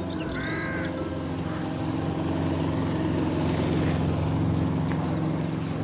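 Motorised pavement sweeper's engine running with a steady hum, growing slowly louder as it approaches. A crow caws once near the start.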